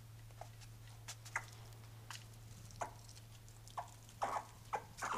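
Squirrels gnawing at a chocolate bunny: irregular short crunchy clicks that come more often in the last second or so. A faint steady low hum runs underneath.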